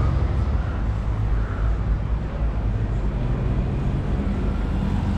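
City street traffic: vehicle engines running with a steady deep hum under general street noise.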